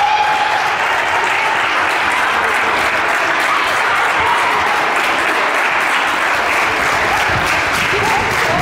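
Steady applause, a crowd of spectators clapping without a break.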